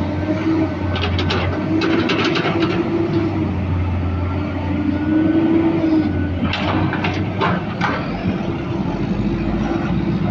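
Excavator's diesel engine running steadily with a whine that rises and falls as it works, and two spells of clattering, one a second or two in and another past the middle.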